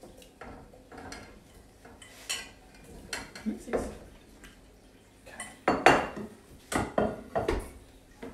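A utensil knocking and clinking against a cooking pot and dishes in a scattered run of sharp knocks, the loudest cluster about six to seven and a half seconds in, as fresh berries are tipped into the pot and stirred.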